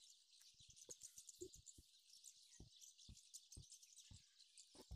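Near silence: faint steady high-pitched background hiss with a few soft ticks.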